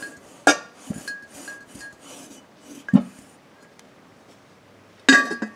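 Ceramic Homer Laughlin Kitchen Kraft jar being handled: a few light clinks and knocks of the pottery. The first, about half a second in, leaves a short ringing tone, a duller knock comes about three seconds in, and a louder ringing clink comes near the end.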